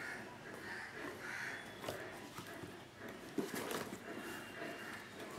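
A cardboard box being handled and turned over by hand: soft scraping and rubbing, with a few light knocks and taps.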